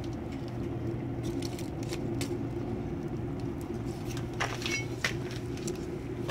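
Kindling burning in the feed tube of a rocket mass heater, with scattered crackles and snaps, a small cluster of them past the middle, over a steady low hum.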